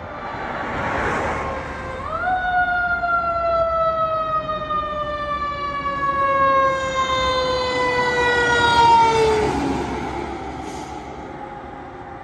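Fire engine's Federal Q mechanical siren winding up sharply about two seconds in, then slowly falling in pitch as it coasts down for about seven seconds before dropping away as the apparatus passes.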